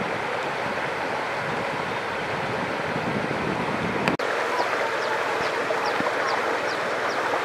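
Steady rush of flowing river water. About four seconds in it cuts to a brighter, shallower stream sound, over which short high chirps repeat about two to three times a second.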